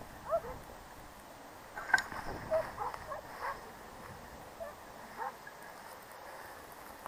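Faint, scattered short yelps of distant hunting dogs driving the boar, with a light handling click about two seconds in.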